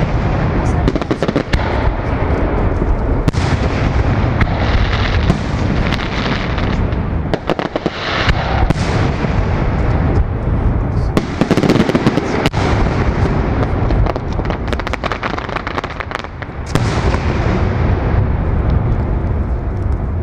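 Fireworks display: aerial shells bursting in quick succession, a continuous din of deep booms and many sharp bangs with no let-up.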